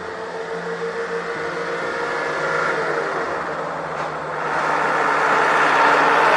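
A road vehicle's engine running with a steady hum, then a louder rushing noise that swells about halfway through as a vehicle moves close by.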